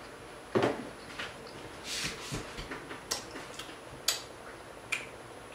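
Close-miked eating sounds from chewing loaded nachos: scattered short, wet smacks and crunchy clicks, roughly one a second, the loudest about half a second in. A smack about four seconds in comes as fingertips are licked.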